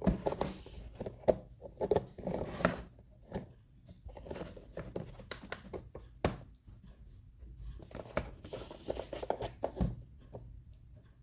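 Small plastic parts of a digital microscope's housing being handled and pulled apart: irregular clicks, scrapes and rustles, busiest in the first few seconds and again near the end, with one sharp click a little past the middle.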